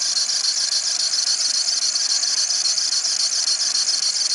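VW Saveiro engine running with its accessory drive belt giving a steady high-pitched squeal. The automatic belt tensioner is bent out of line with the belt, which the mechanic puts down to a knock that pushed it in and a poor attempt to pull it back out.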